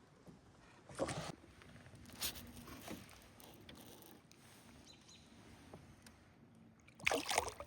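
A few faint knocks and rustles of gear being handled in a canoe, with a louder scrape or bump near the end.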